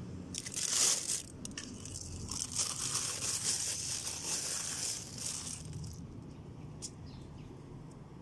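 Plastic bag of pearl millet crinkling and rustling as a hand scoops the grain, with scattered small clicks of seed; it dies down after about five seconds.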